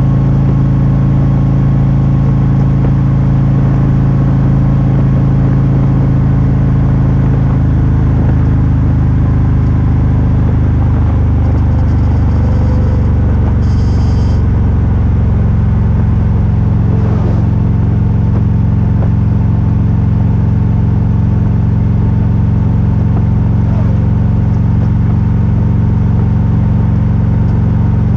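Motorcycle engine running steadily at highway cruising speed under loud, constant wind and road noise, its note easing lower about ten seconds in.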